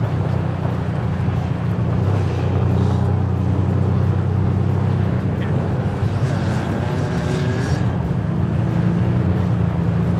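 Ford Bronco's engine running steadily under load as it drives along a soft sand trail, a continuous low drone whose pitch shifts a little around the middle, with tyre and road noise.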